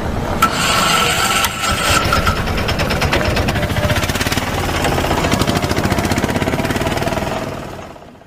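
An engine running with a fast, even pulse, with a thin steady whine over it during the first couple of seconds. The sound fades out near the end.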